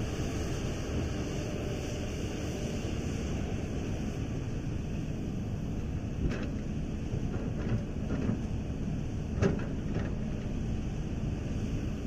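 Hitachi ZX350 excavator's diesel engine running steadily. About halfway through comes a series of knocks and clanks as the bucket dumps sand into an articulated dump truck's steel bed; the loudest is near the end.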